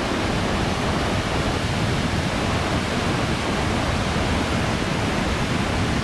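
Thoovanam waterfall in full flow, water pouring and rushing over rocks: a steady, even rush of water noise.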